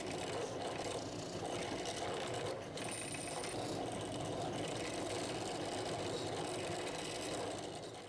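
An electric power tool running steadily under load.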